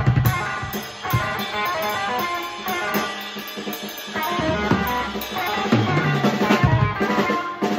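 Electric guitar playing a quick lick of single picked notes, stepping up and down, with a drum kit behind it that thins out in the middle and comes back in near the end.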